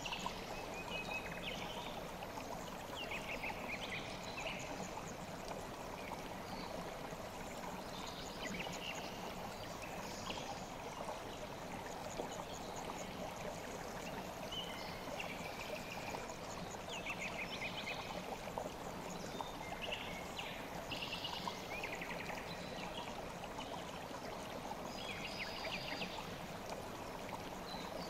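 River water flowing steadily, with small birds chirping in short, quick phrases every second or two.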